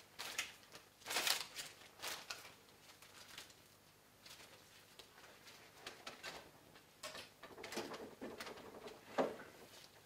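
Plastic oxygen tubing being handled and pushed onto an oxygen regulator's outlet: several brief rustles and light clicks, the loudest about a second in and near the end.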